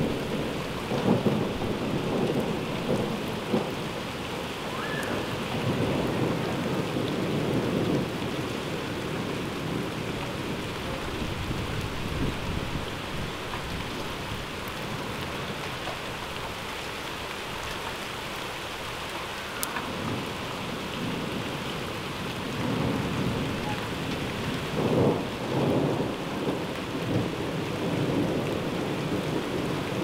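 Heavy rain falling steadily with rolling thunder. Rumbles swell in the first few seconds and again about six to eight seconds in, die down to a lull through the middle, then return strongest near the end.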